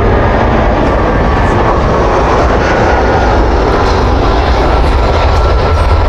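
Alaska Airlines jet airliner passing low on its landing approach: a loud, steady engine roar with a deep rumble, and a faint high whine in the middle.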